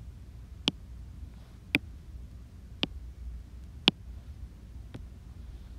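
Sharp single taps on an iPad touchscreen, about one a second, as keys are pressed on the on-screen keyboard, over a faint low hum.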